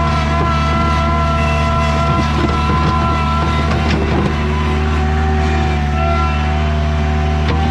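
Bobcat skid steer engine running steadily, with a higher whine over it that drops in pitch about halfway through, and a couple of metallic clanks.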